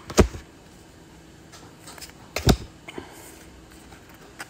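Yu-Gi-Oh trading cards being flipped through by hand, giving a few sharp card snaps and taps. The loudest comes just after the start and another about two and a half seconds in, with smaller ones near three seconds and near the end.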